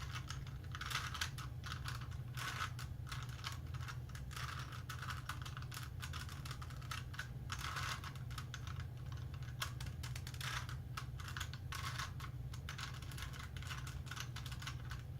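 A Rubik's Cube being twisted by hand during solving: quick irregular runs of small plastic clicks and rattles as the layers turn, over a steady low hum.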